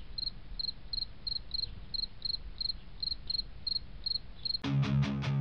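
Insect chirping, short high chirps evenly repeated about three times a second. About four and a half seconds in, music with strummed guitar and a steady beat starts over it.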